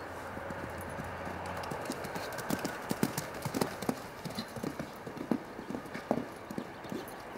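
Hoofbeats of a cantering horse on a sand arena, loud and uneven from about two and a half seconds in as it approaches and clears a show jump.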